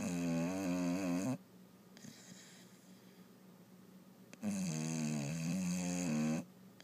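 Bulldog snoring in deep sleep: two long, loud, pitched snores with a wavering tone, about four and a half seconds apart, with soft breathing between them.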